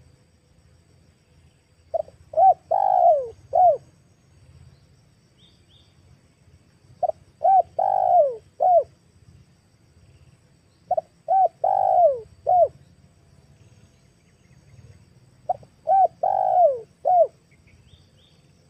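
Spotted dove cooing: four phrases a few seconds apart, each a quick run of four descending notes with the third note the longest and loudest. The uploader presents it as a female's call to males, used as a lure.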